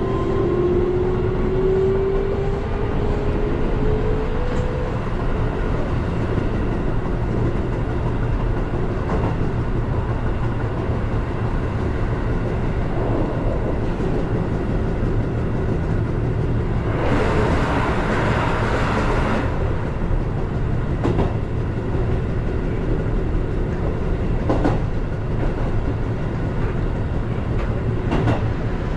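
Keihan electric commuter train running, heard from the driver's cab: steady running noise with a motor whine rising in pitch over the first few seconds as it picks up speed, and a few wheel clicks over rail joints. About two-thirds of the way through comes a couple of seconds of loud rushing noise as a train on the other track passes.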